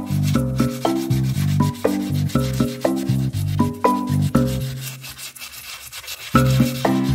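Background music with a plucked, mallet-like melody over a bass line, dipping quieter for a moment about five seconds in. Beneath it, the rubbing of hand sanding on an alloy wheel rim.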